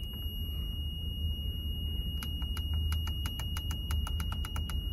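A quickening run of small plastic clicks as a car stereo's power button is pressed over and over, beginning about two seconds in. The radio gives no sound, because it gets no power with the 50 amp main fuse disconnected. A steady high tone sounds throughout.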